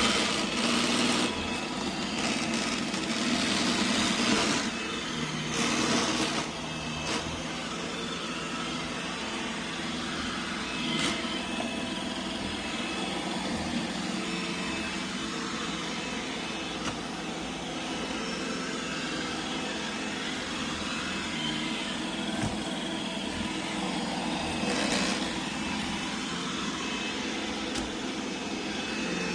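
iRobot Roomba Combo robot vacuum running, its motors humming with a steady whine, plus a loud rattle that has been there since the machine was new. The owner finds nothing caught underneath. The noise grows louder for stretches in the first six seconds and again near the end.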